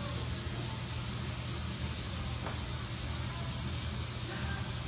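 Steady hiss over a low, even hum from operating-room equipment during nose surgery.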